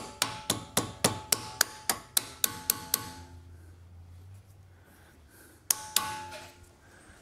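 A hammer striking metal on a Tesla Model 3's rear suspension, knocking a new billet suspension arm into line at the knuckle. Quick blows come about three or four a second with a metallic ring for the first three seconds, and two more blows come near the end.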